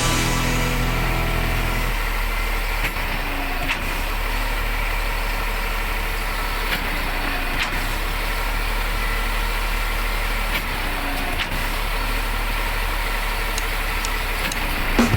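Truck-mounted concrete pump's engine running steadily, with a low hum and a few faint clicks.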